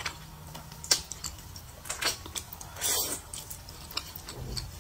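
A person slurping thick, saucy noodles, with wet smacking and clicking mouth sounds and one louder slurp about three seconds in.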